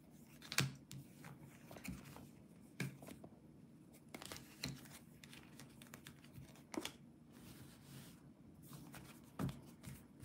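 Tarot cards being gathered up and stacked by hand on a cloth-covered table: soft slides of card against card with scattered light taps, the sharpest about half a second in.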